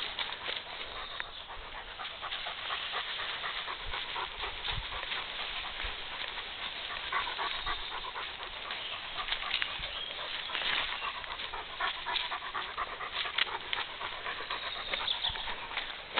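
A dog panting steadily, with rustling in the grass and leaves as it walks.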